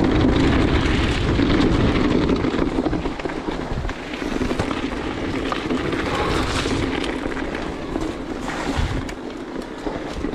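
Wind buffeting the camera microphone as an electric mountain bike descends at speed, with its tyres and frame rattling over a rough, wet stony trail. The noise is loudest for the first few seconds, then eases slightly.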